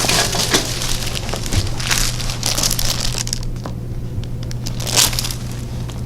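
Rustling and crinkling of a patient shifting on a chiropractic treatment table, with scattered small clicks and a louder rustle about five seconds in.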